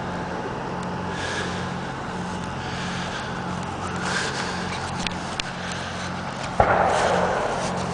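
A steady engine hum runs through, pulsing evenly. About two-thirds of the way in, a firework bursts with a sudden loud bang that trails off over about a second.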